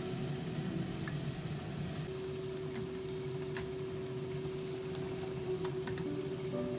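Water boiling in a stainless steel pot with a mesh strainer basket, a steady bubbling hiss, with a couple of light metal clinks as the basket is lifted by its wire handle. Soft background music with held notes plays underneath.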